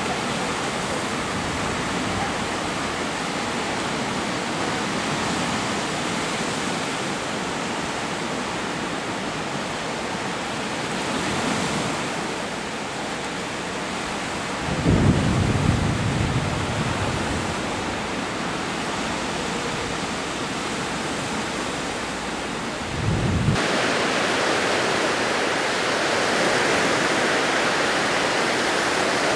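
Small waves breaking and washing on a sandy beach, a steady rushing hiss, with two brief low rumbles partway through. Shortly after the second rumble the sound changes suddenly to a louder, brighter wash of surf.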